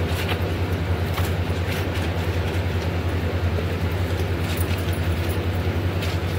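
Clothes being washed by hand, a wet cloth scrubbed and wrung, with scattered short scrubbing sounds. A steady low hum, as from an electric motor, runs loud underneath throughout.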